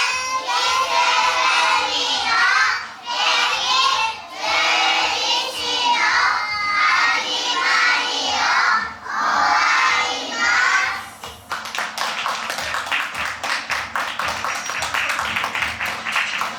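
A group of young children's voices in unison, in short phrases with brief pauses. About eleven seconds in they give way to music with a quick, steady tapping beat.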